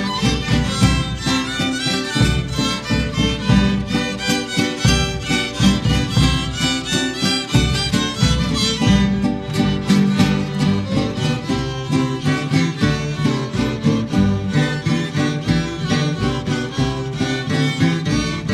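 Music with violin and guitar over a steady rhythm.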